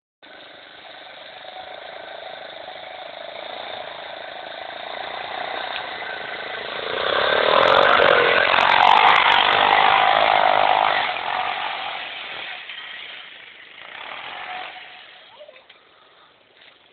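Hammerhead 250SS buggy's engine running hard as the buggy climbs a small hill. It grows louder, is loudest from about seven to eleven seconds in, then fades away.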